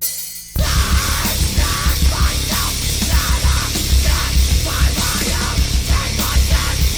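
Loud heavy metal intro music with distorted guitars and pounding drums, starting abruptly about half a second in.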